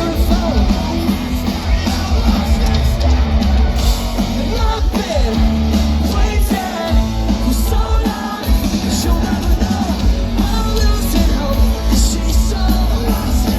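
Rock band playing live at full volume: singing over electric guitars, bass and drums.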